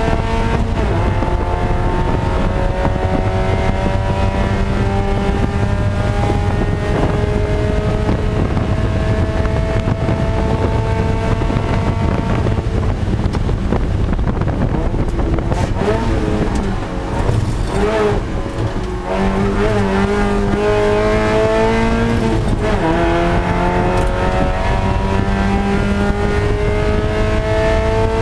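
A Spec Miata's four-cylinder engine heard from inside the cockpit, pulling at full throttle with its pitch climbing slowly. About halfway through the revs fall and waver through a brief lift and downshifts for a corner, then the engine pulls again, with one upshift near the end.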